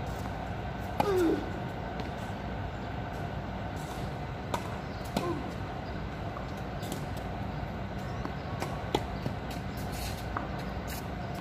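Tennis balls struck by rackets and bouncing on a hard court during a rally: several sharp pops a few seconds apart, the loudest about a second in, over a steady background hum.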